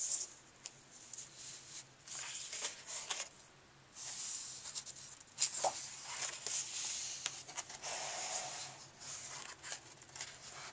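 Pages of a large paperback coloring book being turned and hands sliding over the paper: several separate bursts of paper rustling and flapping, with a few sharp ticks.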